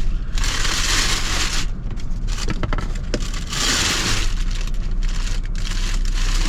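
Rummaging through gear to find a small gas leak detector: two bursts of rustling and crinkling about a second long, with a few light clicks and knocks in between.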